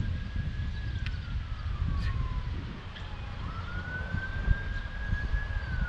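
Emergency vehicle siren wailing, a single tone slowly rising and falling, over wind buffeting the microphone.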